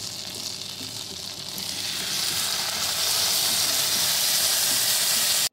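Butter sizzling in a hot non-stick frying pan with a rump steak laid in to fry. The sizzle grows louder about two seconds in and cuts off suddenly at the end.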